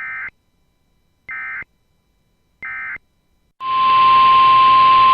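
Three short EAS/SAME digital data bursts about a second apart: the end-of-message code that closes the broadcast alert. About three and a half seconds in, a loud steady single-pitch alert tone starts over radio hiss: the 1050 Hz weather radio warning alarm tone that opens the next alert.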